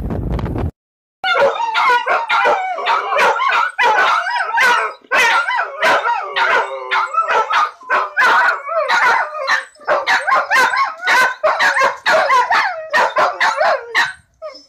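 Dog howling, yipping and barking in quick, pitch-bending calls with sharp starts for most of the stretch. In the first second a low rumbling noise cuts off abruptly, followed by a short silence.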